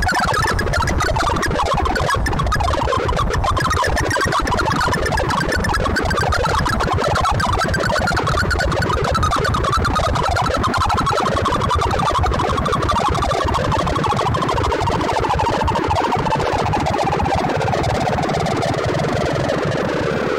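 Sonified cocktail shaker sort: a dense, rapid stream of synthesized beeps, one per write to the array, each pitched by the value written, blending into a chaotic warbling buzz. The main pitch band slowly falls as the sweeps close in on the sorted array.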